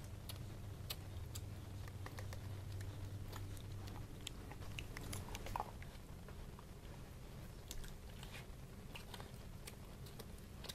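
Dog gnawing a fresh beef bone: irregular clicks and scrapes of teeth on bone, with a sharper crack about five and a half seconds in, over a low steady hum.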